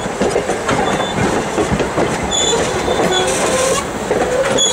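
Passenger coaches rolling past close by: steel wheels clicking over the rail joints, with a thin, high wheel squeal setting in about halfway through.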